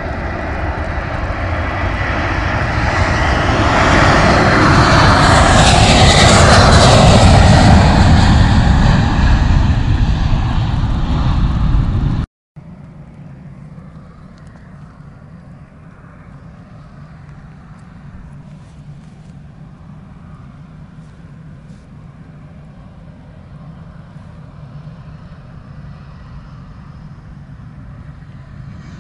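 A jet airliner passing close overhead: its engine noise builds to a peak about six to eight seconds in, with a whine that bends in pitch as it goes by. It then breaks off suddenly, and a much fainter, steady jet engine rumble follows.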